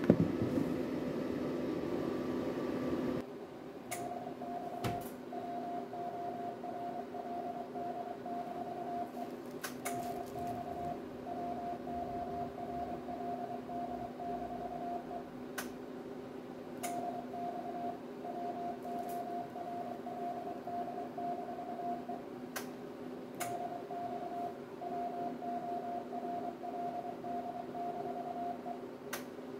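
Transceiver's Morse code (CW) sidetone: one steady pitch keyed on and off in runs of dots and dashes with short pauses, as the radio drives the 500 W linear amplifier in transmit. A steady cooling-fan hum runs underneath, louder for the first three seconds, and sharp clicks come now and then, several as keying begins.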